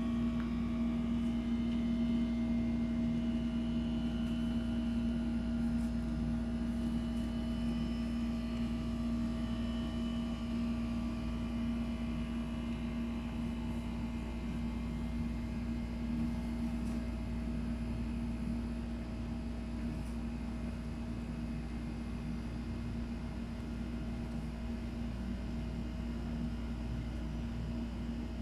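A steady mechanical hum with a constant low drone tone and a fainter higher tone above it, holding level throughout.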